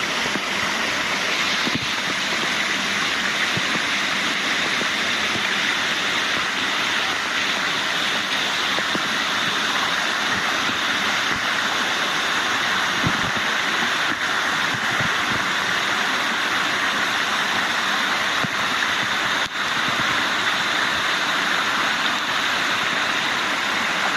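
Steady rush of a waterfall's falling water, an even hiss that stays at the same level throughout.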